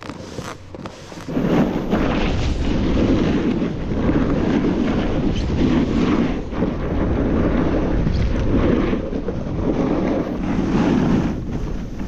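Wind rushing over the camera microphone, mixed with a snowboard scraping across packed snow as it rides downhill. It starts suddenly about a second in and swells and eases every second or so.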